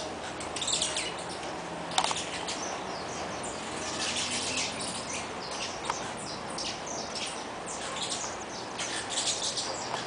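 A flock of saffron finches chirping, many short, high calls overlapping throughout. Two sharp clicks stand out, about two seconds in and again about six seconds in.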